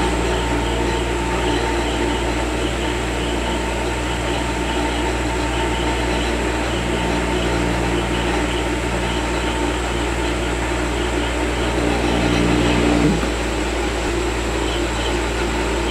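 Steady fan hum over a low, constant electrical drone, with a faint steady high whine; it swells slightly about twelve seconds in.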